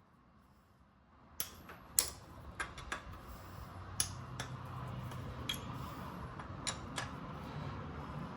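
Hand tools working on the dirt bike's fork clamp bolts: irregular sharp metallic clicks, about eight over six seconds, starting about a second and a half in.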